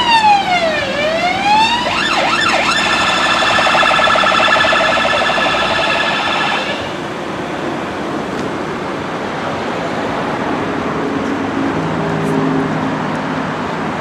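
Ambulance siren sounding a slow rising and falling wail, switching about two seconds in to a fast warble, then cutting off about seven seconds in. Road traffic noise follows.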